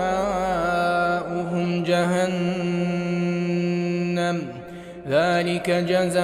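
Melodic Quran recitation by a single voice, one long note drawn out for about four seconds with slight wavering. It breaks off briefly about four and a half seconds in, then resumes with a rising melodic phrase.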